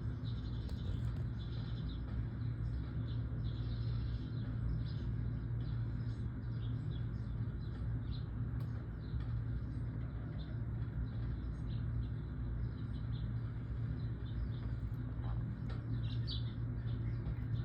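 Wild birds chirping: many short, high calls scattered throughout, over a steady low hum.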